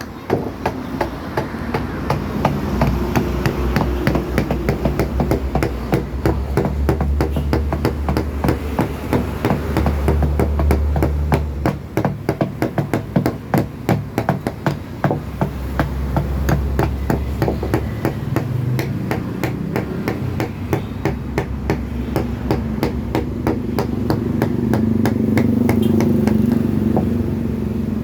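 Mallet tapping a carving chisel into wood, hand-carving a door panel, in rapid, steady strikes over a low hum.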